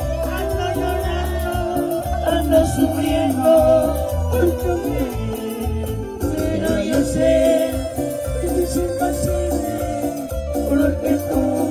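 Cumbia band playing: a held melody line over a steady pulsing bass and percussion beat.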